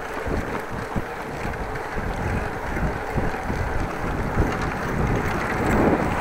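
Wind buffeting an action camera's microphone while cycling at speed: a steady rushing rumble with uneven low gusts, growing a little louder near the end.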